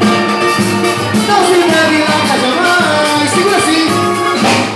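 Live band music with a singer, a Latin-flavoured groove held at steady loudness.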